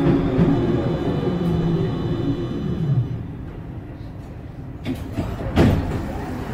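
Solaris Tramino S105P tram running, its motor whine falling in pitch and the running noise dying down about three seconds in as the tram slows. Two sharp knocks near the end.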